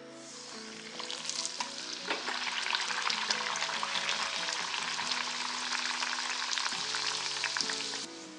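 A bhatura (yeasted maida dough) deep-frying in hot refined oil in a kadai, a dense sizzle full of small crackles. It starts as the dough goes in, builds over the first second or two, then holds steady and cuts off suddenly near the end.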